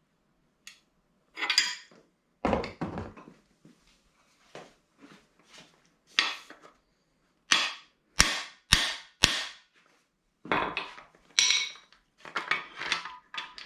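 Hammer blows on a cam bearing installer, driving a camshaft bearing into the bore of a 350 small-block Chevy block: about fifteen sharp taps, irregularly spaced, with a quick run of three clean strikes about eight seconds in.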